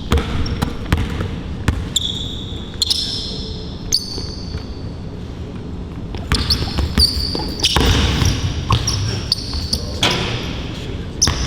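Basketball bouncing on a hard outdoor court with sneakers squeaking in short high chirps, over background crowd chatter.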